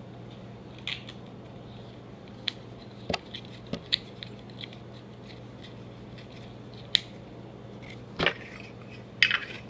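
Small scattered metal clicks and scrapes from a Zippo lighter's insert being handled as the flint-spring screw is screwed back in, over a faint steady hum.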